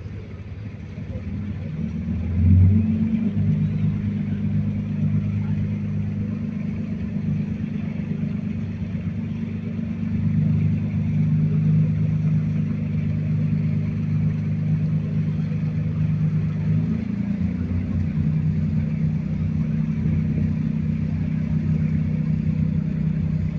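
A river cruise motor ship's diesel engines running with a low, steady drone as it manoeuvres away from the pier. The drone swells sharply about two and a half seconds in and changes pitch about seventeen seconds in.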